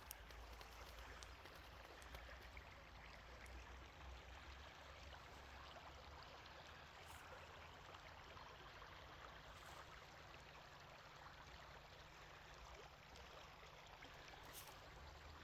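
Small river babbling steadily, faint, with a low rumble underneath.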